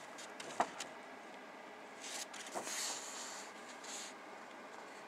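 Clear plastic bag crinkling around a model-kit decal sheet as it is handled, with a faint click about half a second in and a longer rustle about two to three seconds in.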